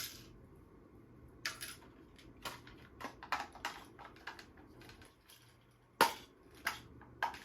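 Scattered sharp clicks and light knocks of household items being handled and set down during cleaning, about a dozen at uneven intervals, the loudest about six seconds in.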